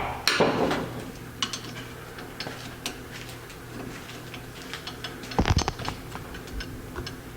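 Small metal carburetor parts and hand tools clicking and clinking as the single-barrel carburetor is taken apart, with scattered light ticks and two louder clattering handlings, one just after the start and one about five and a half seconds in.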